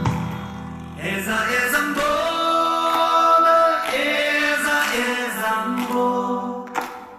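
Part of a song: voices sing long held notes in harmony, coming in about a second after the low accompaniment drops away, and fade out near the end.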